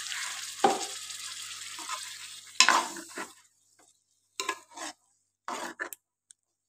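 Chicken-and-potato curry sizzling in a pan just after water is added to the hot oil, while a metal spoon stirs it, knocking twice against the pan. About halfway through, the sizzling dies away, leaving short scrapes of the spoon against the pan.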